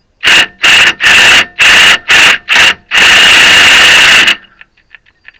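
Cordless impact wrench run on a nut in six short bursts and then one longer burst of about a second and a half. The nut seems not to grab, which the mechanic puts down to the part still spinning with it, and the tool's battery is running low.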